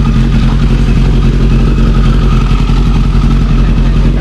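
Kawasaki ZX-11's inline-four engine idling, loud and steady, with no revving.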